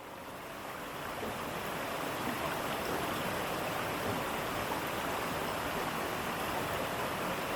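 Rushing water of a waterfall in high flow, a steady, even roar that fades in over the first second or so and then holds level.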